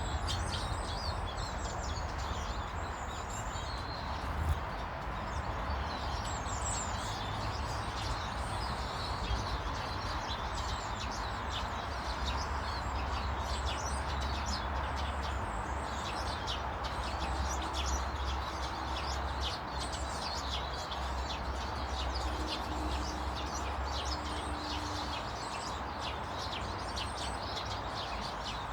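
Garden birds chirping and twittering, many short high calls overlapping throughout, over a steady low rumble.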